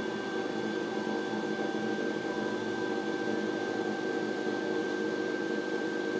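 WeCreat Vision Pro 45 W diode laser engraver running a job, its moving head and fans giving a steady whirring hum mixed with an exhaust fan, with a thin steady high whine over it.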